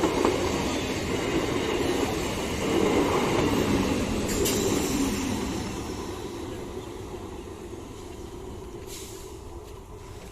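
Electric multiple-unit train running past on the track, its rumble loud for about the first half and then fading steadily as it moves away.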